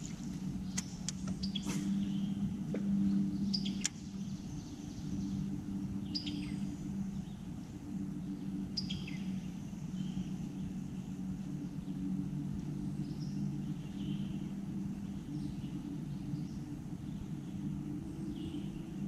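Steady low hum of a bass boat's electric trolling motor, with birds chirping now and then and a few short clicks in the first few seconds.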